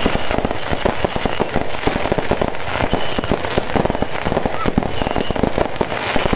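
Fireworks and firecrackers going off in a dense, unbroken barrage of rapid pops and bangs.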